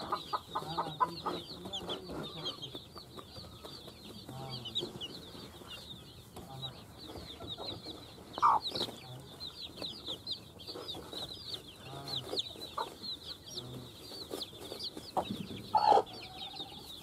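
A brood of domestic chicks peeping constantly in quick, high chirps while the mother hen clucks low and softly every second or so. Two louder short calls stand out, about halfway through and near the end.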